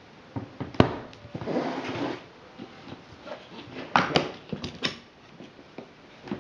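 Black hard plastic carrying case being handled and opened: a sharp plastic click about a second in, then scraping as the case is shifted. A quick run of snapping clicks follows about four to five seconds in as the front latches are flipped open.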